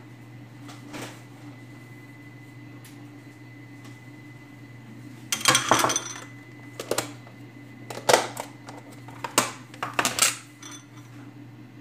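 Kitchen dishes and utensils clattering: a burst of sharp clinks and knocks about halfway through, then several more over the next few seconds, over a steady low hum.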